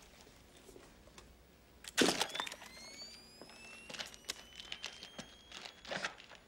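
A camera shutter and flash fire about two seconds in, followed by the flash unit's rising high whine as it recharges. Scattered small clicks and rustling fill the rest.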